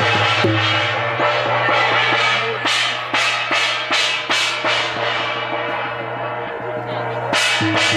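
Khmer wedding procession music: a handheld gong struck again and again with a stick, each stroke ringing on, over hand drums and a steady low drone. The strokes come thickest a few seconds in and thin out near the end.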